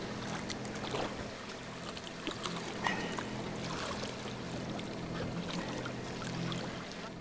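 A boat's motor running with a steady low hum, while water splashes and sloshes as a hooked fish is scooped up in a landing net at the side of the boat, with a few short knocks and splashes about a second, two seconds and three seconds in.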